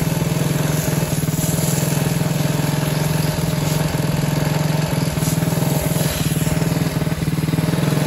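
Hero motorcycle's single-cylinder engine running steadily, driving a home-built pressure-washer pump through a chain, while a high-pressure jet of water hisses from the hose nozzle.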